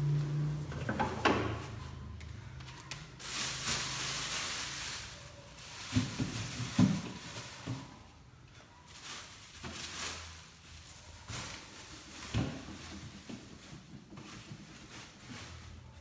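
Plastic refrigerator shelves and drawers being handled, knocking and clattering a few times, with a stretch of rustling about three to five seconds in.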